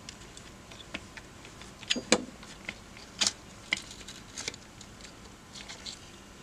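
Scattered sharp plastic clicks and taps as a Uni-T UT61E multimeter's circuit board is worked free of the clips in its plastic case. The loudest clicks come about two and three seconds in.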